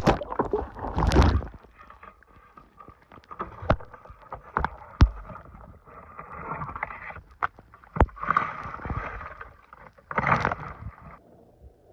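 Water sloshing and splashing at the lake edge, with scattered sharp knocks and clicks and a few bursts of rustling from handling the fishing gear while a fish is brought in.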